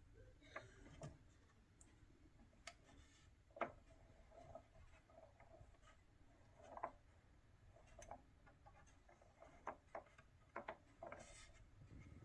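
Faint, scattered clicks and light knocks, about a dozen at uneven intervals with the sharpest about three and a half seconds in, from handling a 1962 Olympia SM7 manual typewriter.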